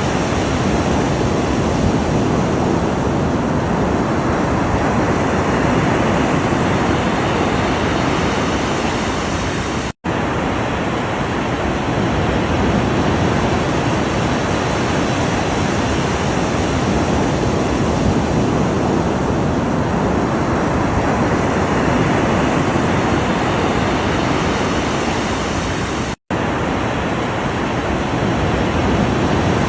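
Ocean surf: a steady, dense wash of waves that swells and eases slowly, broken by two split-second dropouts, one about ten seconds in and one near the end.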